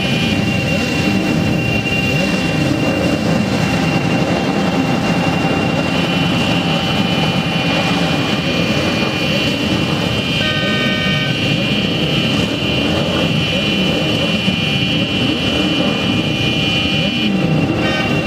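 A large group of motorcycles running and revving together, engine pitches rising and falling over one another. Horns sound over them in long, steady blasts, strongest through the second half, with a lower horn joining briefly about ten seconds in.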